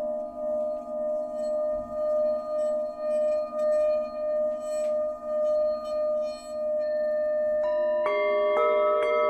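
Tibetan singing bowls: a steady ringing tone that swells and fades about twice a second. Near the end three more bowls are struck in quick succession, adding higher ringing tones over it.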